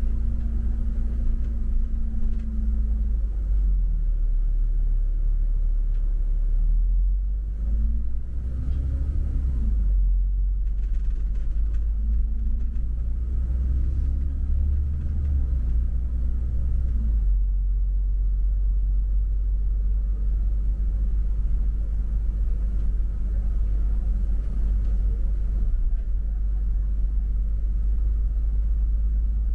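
Double-decker bus engine and drivetrain running in city traffic, a steady low rumble. A low whine rises and falls several times over the first half as the bus changes speed, then holds steadier.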